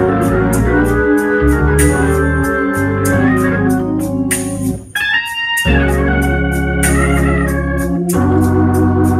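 Hammond organ played solo: held chords over a moving bass line. About halfway through, the low notes drop out for a moment under a short higher phrase, then the full chords and bass return.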